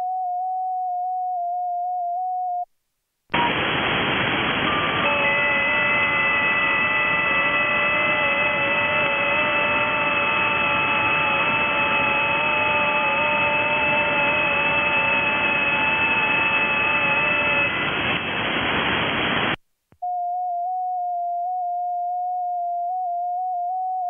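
Digital-mode (FT8) audio: the station's own transmit tone near 700 Hz, stepping slightly in pitch, stops about three seconds in. After a short silence comes the IC-7100's receiver hiss on the 30 m band, carrying several FT8 signals as steady, slightly warbling tones at different pitches for about sixteen seconds. A brief silence follows, then the transmit tone starts again near the end.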